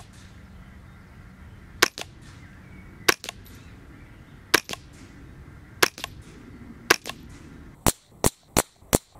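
Smith & Wesson M&P 15-22 semi-automatic .22 LR rifle firing through a sound moderator. It fires five single shots spaced about a second to a second and a half apart, then a quick string of four shots about a third of a second apart near the end.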